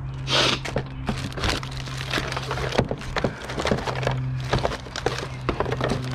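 Computer parts and scrap being handled and tossed while sorting: a string of short knocks, clacks and rattles, with a brief rustle just after the start. Background music plays underneath.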